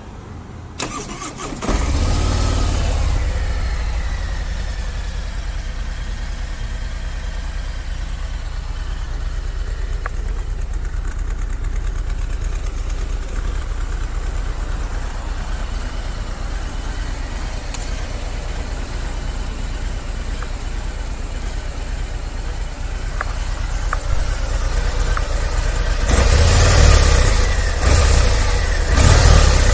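Harley-Davidson Ultra Limited's Milwaukee-Eight 114 V-twin started on the electric starter, catching after a brief crank and settling into a steady idle. It is revved several times near the end.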